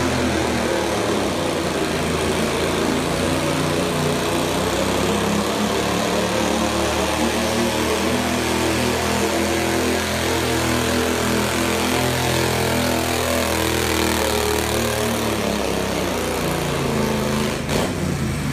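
Small garden tractor engine running steadily under load as it pulls a weight-transfer sled, its pitch dipping slightly near the end.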